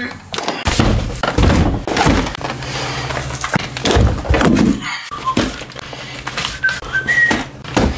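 Cardboard firework cake boxes being handled and set down onto a stack, with repeated hollow thuds and knocks and the scrape of cardboard on cardboard.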